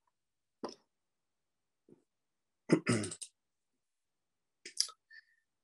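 A man clearing his throat about three seconds in, with a few brief, fainter mouth or movement noises before and after, over video-call audio that is dead silent between them.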